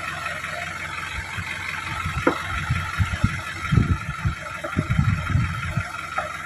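Isuzu light truck's engine idling steadily, with a string of irregular low thuds in the middle from the rear wheel being dug out of the mud.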